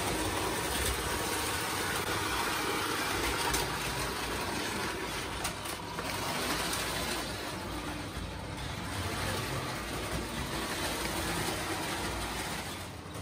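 Lionel O gauge toy trains running on three-rail tinplate track: a steady whir and rumble of the locomotive motors and metal wheels rolling over the rails.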